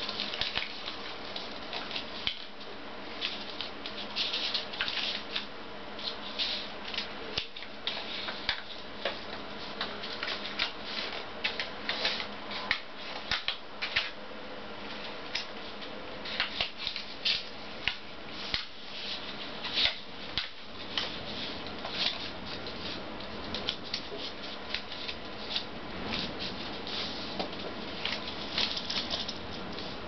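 A sheet of origami paper being folded and creased by hand, crinkling and rustling in irregular short crackles, with a few sharper snaps as folds are pressed flat.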